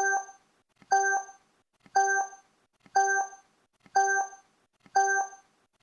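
Countdown timer sound effect: a short pitched beep with a faint click at its start, repeating once a second, six times, each fading quickly.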